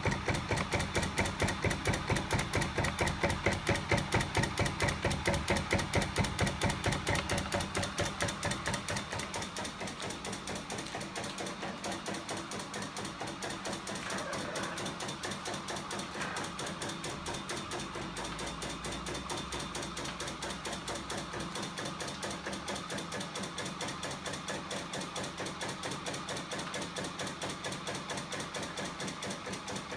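Home-built crank-and-linkage mechanism driven by a battery-powered electric motor, running with a fast, even, rhythmic clatter of knocks. It gets somewhat quieter about nine seconds in and then runs steadily.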